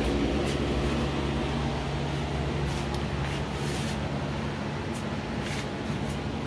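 Steady hum of running workshop machinery: a low drone with several held tones underneath, and a few short high hisses of air.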